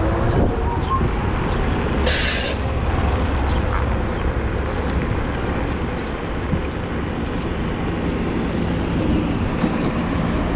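Steady rumble of street traffic and wind noise heard from a moving electric scooter, with a short, sharp hiss of a city bus's air brakes about two seconds in.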